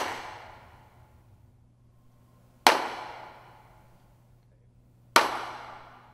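Three single hand claps, about two and a half seconds apart, each ringing out in a long echoing decay.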